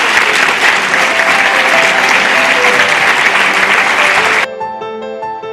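Audience applauding at the end of a talk, with gentle music starting beneath it about a second in. The applause cuts off suddenly about four and a half seconds in, leaving the music alone.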